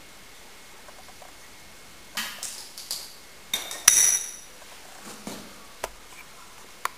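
Scattered metallic clicks and scrapes, the loudest a sharp click with a short high ring just before four seconds in, as a fine silver vessel is inflated by fluid pressure through a brass fitting worked with a wrench.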